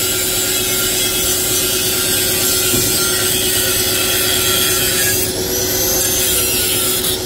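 Angle grinder with a cut-off disc running steadily as it cuts through the steel end of a TVS Apache RR 310 muffler, a continuous high grinding hiss over the motor's steady hum. The sound of the cut shifts about five seconds in.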